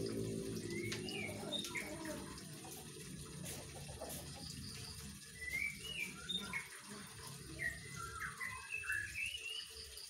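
White-rumped shama singing in short phrases of sliding whistled notes, livelier in the second half, over a steady background hiss.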